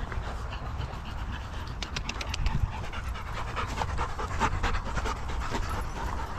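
A dog panting, with a series of short sharp clicks or breaths between about two and five and a half seconds in, over a low rumble.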